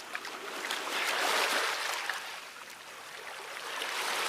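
Flowing water: a steady rushing that swells about a second in, eases, and builds again near the end.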